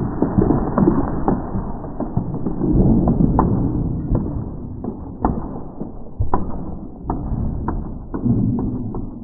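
Small magnetic spheres scattering after a ten-foot drop, played back in slow motion. Low rumbling comes with a string of sharp clicks as the balls hit the floor and each other, the clicks coming about once a second from a few seconds in.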